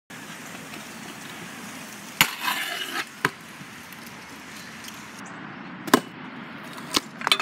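Stunt scooter riding on concrete: sharp clacks of the wheels and deck hitting the ground, about six in all, with a short rolling rasp of the wheels after the first.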